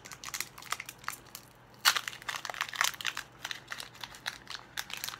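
Foil booster pack wrapper crinkling and tearing as it is opened by hand: an irregular run of sharp crackles, loudest about two and three seconds in.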